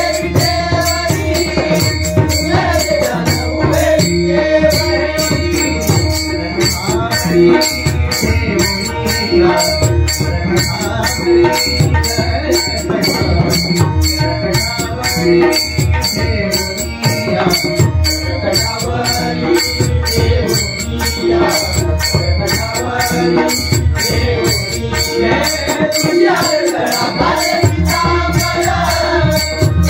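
Instrumental passage of a devotional abhang: pakhawaj and tabla drumming in a steady rhythm, with small hand cymbals striking evenly over a melody line.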